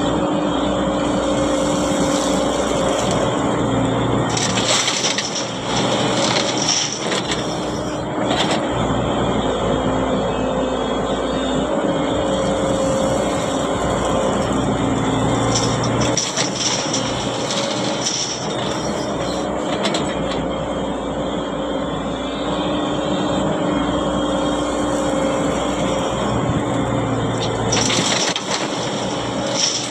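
Excavator's diesel engine running steadily, with short crunching noises of the bucket digging or dumping every several seconds.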